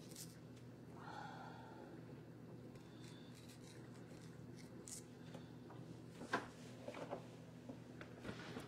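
Faint scraping of a vegetable peeler drawn along a raw potato, stroke after stroke, over a steady low electrical hum. A few sharp clicks and plastic-bag rustles in the last few seconds as the peel is flicked into the trash bag.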